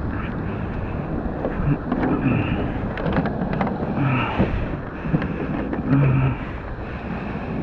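Wind buffeting the camera's microphone with a steady low rumble, with a few sharp clicks in the middle.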